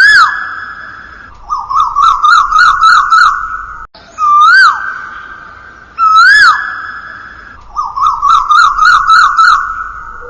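Looping bird-like electronic whistling: single swooping whistles that rise and fall, alternating with stretches of rapid warbling trill.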